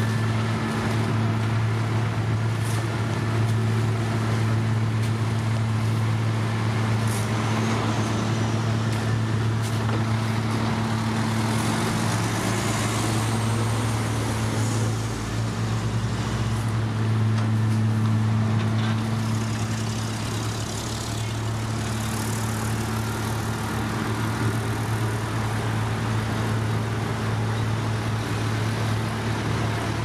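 Diesel engines of a dump truck and gravel spreader running steadily with a low hum, and another engine rising in pitch partway through.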